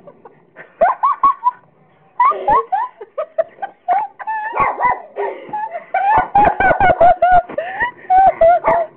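High-pitched giggling and laughing, breaking into fast repeated laughs over the last few seconds.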